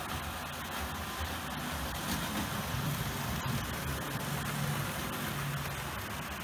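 OO gauge model A3 steam locomotive hauling an express of maroon coaches past on the track: the steady low hum and rumble of its electric motor and wheels, growing a little louder in the middle as the train runs by.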